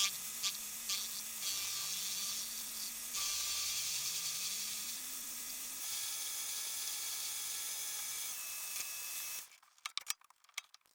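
Mini lathe running while facing the end of 40 mm round stock: a steady cutting hiss with a faint motor tone that rises and falls. It stops about nine and a half seconds in, followed by a few sharp clicks.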